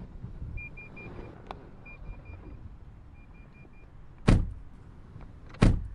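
Car door-open warning chime dinging in short repeated runs, then two car doors slamming shut about a second and a half apart.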